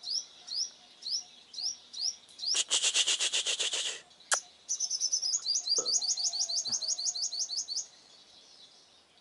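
A sunbird decoy calling hard: a steady series of sharp, rising high chirps, then a fast buzzy trill about three seconds in, and a rapid run of chirps. A single sharp click comes about four seconds in.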